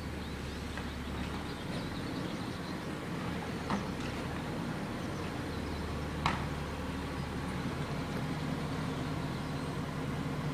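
A vehicle engine runs steadily with a low hum. Two sharp clicks stand out, one a little over a third of the way through and one a little past the middle.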